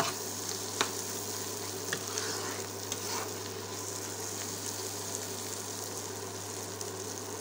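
Grated potato and egg frying in oil in a non-stick pan, a steady sizzle while a spatula stirs and scrapes through it, with a few light clicks of the spatula against the pan. A steady low hum runs underneath.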